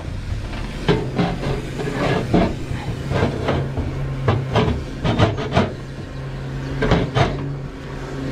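Irregular metallic clanks and rattles of load-securing tie-down chains and binders being handled, over a steady low engine hum.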